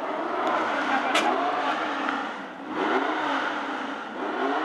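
Racing car engine being revved in several short blips, its pitch rising and falling with each blip.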